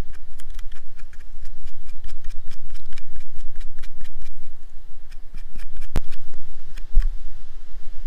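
Footsteps through forest undergrowth: an irregular run of small crackles and snaps of twigs and brush, with one sharper snap about six seconds in, over a steady low rumble.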